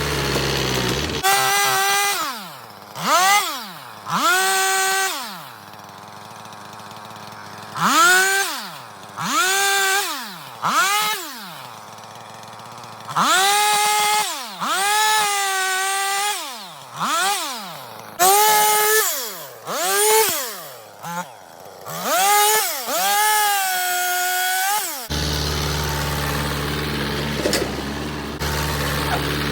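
Two-stroke chainsaw revved up and let back down over and over while cutting, each rev a rising whine that holds briefly and then falls away, about fifteen times. A steady lower engine hum runs before the first rev and after the last.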